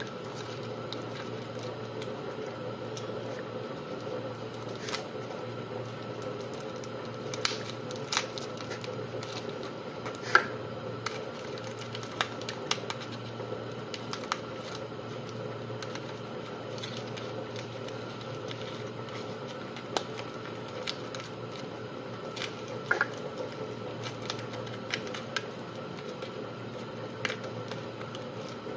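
Aluminium foil crinkling and crackling in the fingers as it is pinched and folded, in scattered small clicks, the sharpest about ten seconds in, over a steady hum.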